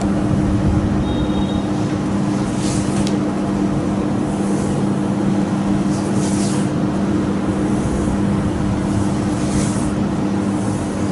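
Steady machine hum with a constant low drone. Faint soft swishes come every couple of seconds as the heel of a hand is pressed and slid along a bare back.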